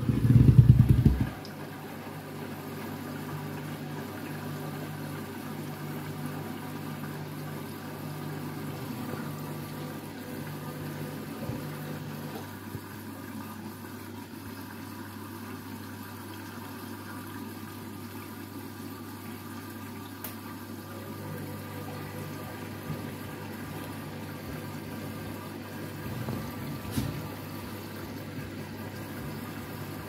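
Beko front-loading washing machine on a rinse cycle: a steady motor hum with a low tone and water sloshing in the turning drum. A second, pulsing hum drops out for several seconds midway. It opens with a loud low thump lasting about a second.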